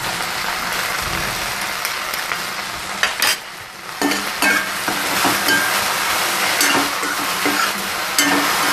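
Okra sizzling as it fries in oil in a stainless steel kadhai while a metal slotted spoon stirs ground spices through it. The spoon knocks once about three seconds in, the sizzle drops briefly, then the spoon scrapes against the pan about twice a second.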